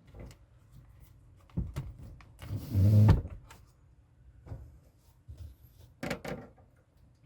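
Handling noises: scattered clicks and knocks of objects being moved, with a louder scraping thump about three seconds in and another short clatter near the end.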